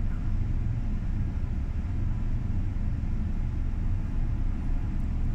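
Steady low rumble of a helicopter idling on a ship's helideck, mixed with wind buffeting the microphone.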